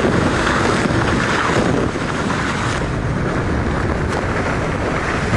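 Strong wind buffeting the microphone over the rush and slap of choppy water against a small trimaran beating upwind. The noise eases a little about two seconds in.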